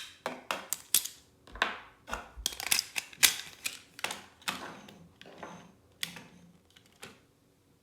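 Hard plastic toy train parts being handled, with many sharp clicks and clacks mixed with short rustles; the handling stops about a second before the end.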